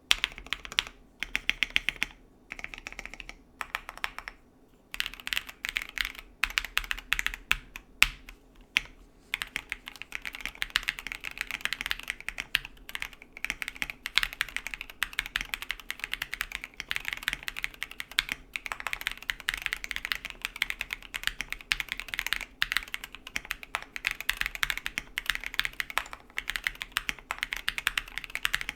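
KBD67 Lite R2 mechanical keyboard fitted with stock, unmodified JWK Black linear switches being typed on. Short runs of keystrokes with brief pauses over the first several seconds, then continuous fast typing.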